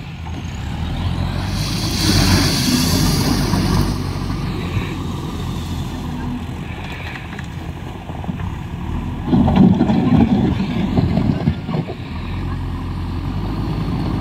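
JCB 4DX backhoe loader's diesel engine running steadily as the machine drives in reverse over gravel, with a louder, rougher stretch about two-thirds of the way in.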